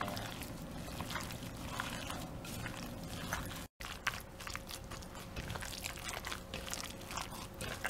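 Wet squelching with irregular small clicks as gloved hands squeeze and toss chicken thigh pieces in an oily lemongrass marinade in a glass bowl. The sound cuts out completely for a moment just before halfway.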